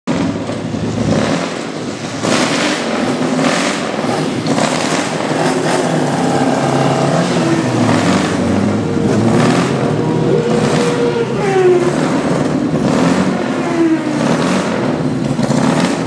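Engines of classic racing sidecar outfits running and being revved, the pitch rising and falling with repeated throttle blips about once a second.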